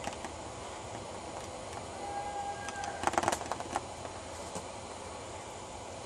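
A single hunting-horn note held for just under a second, followed by a short burst of loud crackling and rustling as hedge leaves and twigs brush against the camera.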